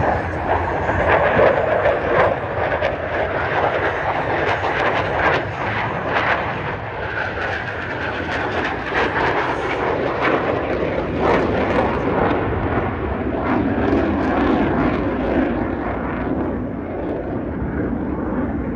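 Blue Angels F/A-18 Super Hornet jet flying past with a loud, steady rush of jet engine noise, its pitch slowly dropping as the jet draws away.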